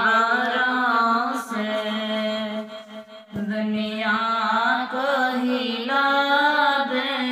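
Devotional chant-style singing: a voice holding long, wavering notes over a steady low drone, with a brief dip in loudness about three seconds in.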